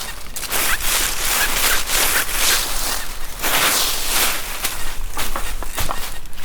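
Repeated rustling and crunching of dry forest leaf litter, with a few faint short high chirps mixed in.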